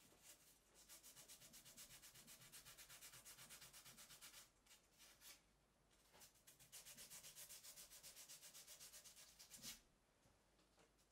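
Quick back-and-forth hand rubbing strokes on a small workpiece clamped in a bench vice, several strokes a second. There are two runs with a short pause between them, and a sharper knock ends the second run.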